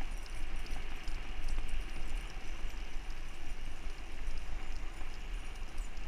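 Steady wind rush and wheel rumble as a rig is pulled at speed along a paved trail, with fast light clicking on top.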